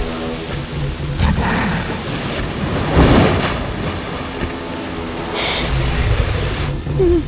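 Film sound design: a Carnotaurus growling and roaring through a waterfall over the steady rush of falling water, with low, tense music underneath.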